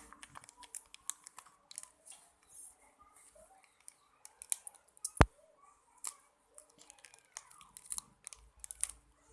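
Lifebuoy shampoo being poured out of its plastic packaging into a container by hand, with scattered small clicks and crinkles from the plastic and a sharp click about five seconds in.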